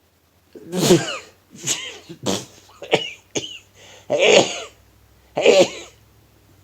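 A man sneezing in a rapid fit, about seven sharp bursts in quick succession, the first and the last two the strongest. His nose is stopped up.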